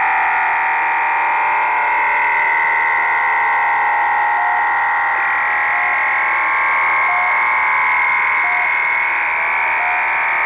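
Shortwave radio reception of The Pip: a strange, dense cluster of steady tones fills the receiver's narrow audio passband, and its pattern shifts about halfway through. Faint short pips sound about once a second beneath it.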